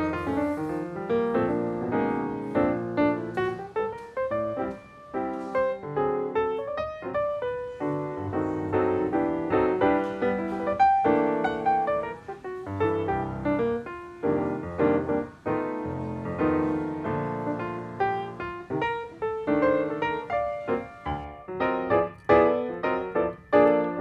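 Background piano music, a continuous run of notes.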